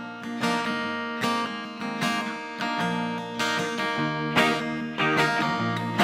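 Acoustic guitar strumming and picking chords as a song's instrumental intro, before any singing.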